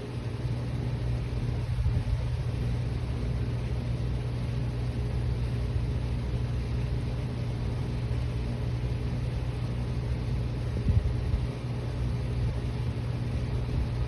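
A steady low mechanical hum at a constant pitch, like an engine running.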